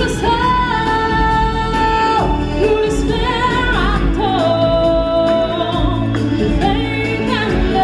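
Stage-show singers holding long, wavering sung notes over musical accompaniment, a song from a live musical performance.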